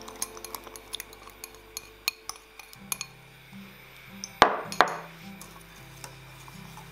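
Kitchen utensils clinking and tapping against dishes, with two louder sharp knocks close together a little past the middle, over soft background music.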